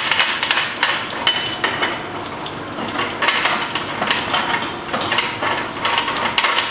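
Stainless-steel RJT fittings on a brewery boil kettle's condenser stack being undone by hand: repeated small metallic clinks and rattles.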